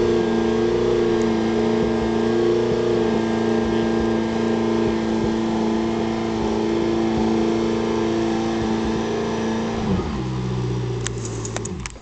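McLaren MP4-12C Can-Am Edition's twin-turbo V8 held at a steady raised rev for about ten seconds for a static noise test, then dropping back to idle near the end. It is a fairly quiet note for a race car, and it passed the test. A few light clicks come just before the end.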